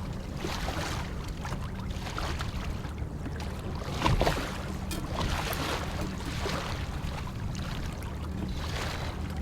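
Lake water lapping and slapping against a kayak hull in swells about once a second, with wind on the microphone and a steady low electrical hum from faulty recording gear. One louder knock about four seconds in.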